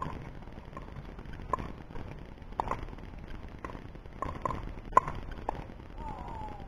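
Pickleball rally: paddles striking the hollow plastic ball with sharp pops, some of them the ball bouncing on the hard court, coming about once a second and sometimes two in quick succession. A few short squeaks near the end.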